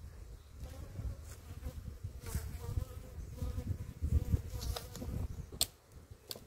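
Honeybees buzzing around an opened hive, a wavering hum of bees flying close past the microphone, with two sharp clicks near the end.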